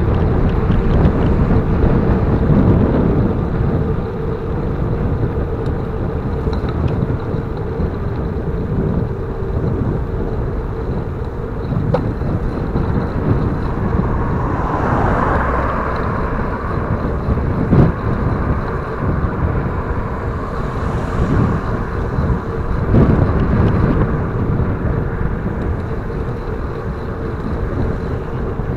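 Wind rumble and road noise heard while riding a bicycle, with passing traffic that swells loudest about halfway through.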